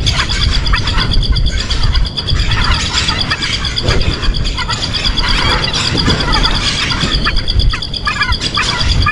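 Birds chirping repeatedly, in short calls, over a steady pulsing high drone and a low rumble.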